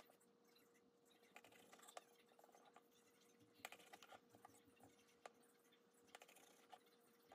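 Faint scratching of a kitchen knife sawing through bread crusts, with scattered light clicks and taps of the blade on a wooden cutting board.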